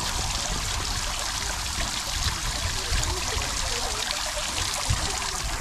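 Tiered garden fountain running: water spilling from its upper bowl and splashing steadily into the stone basin below.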